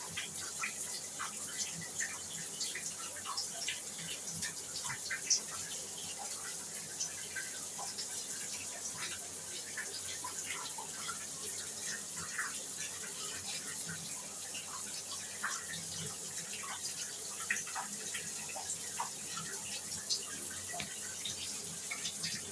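Shower water running: a steady hiss of spray with scattered small splashes and drips.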